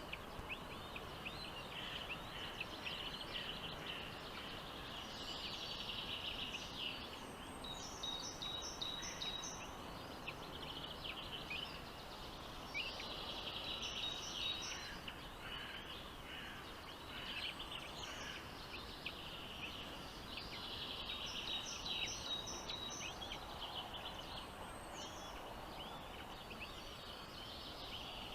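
Nestlings chirping in bouts of rapid, high-pitched begging calls, typical of chicks being fed. Each bout lasts a few seconds, with quieter spells between, and short runs of sharper, higher repeated notes among them. A steady hiss runs underneath.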